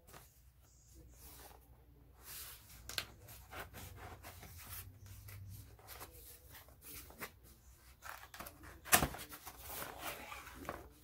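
Cardboard shipping box being handled and opened: scattered rustles, scrapes and taps of cardboard, with one sharper knock about nine seconds in.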